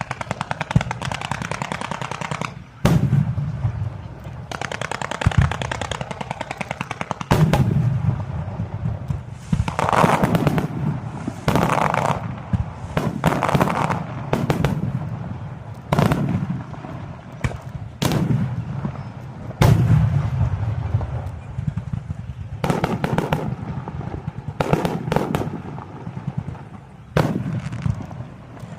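Aerial firework shells bursting one after another, each a sharp bang followed by a low rolling boom, with stretches of dense crackling in between.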